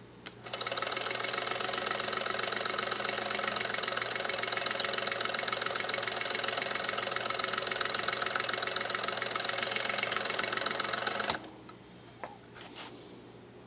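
Singer 221 Featherweight sewing machine running with a Singer pinking attachment fitted, the attachment's blade chopping a zigzag edge into denim. A fast, even mechanical rattle starts about half a second in and cuts off suddenly near the end.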